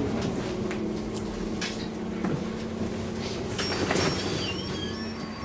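Iveco Urbanway 12 city bus standing at a stop with its engine idling in a steady hum, with scattered clicks and knocks. A thin high whine comes in a little over halfway.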